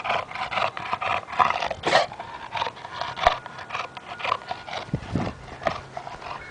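English bulldog panting and snorting in quick, noisy breaths close up, about three a second, thinning out near the end. A sharp click about three seconds in.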